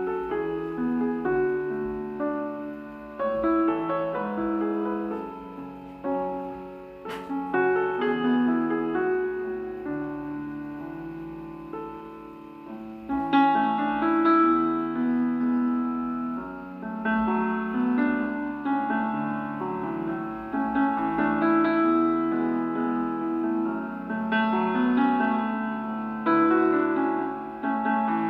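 Background music: a gentle piano or electric-piano melody with chords. A single brief click comes about seven seconds in.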